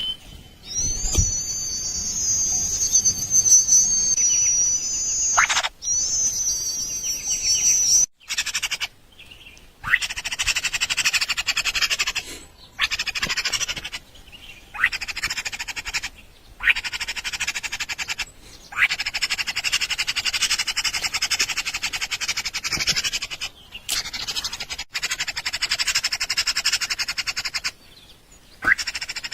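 Nestling birds begging for food. High, thin wavering calls come first, then rapid buzzy chittering in runs of a few seconds, broken by short silent gaps.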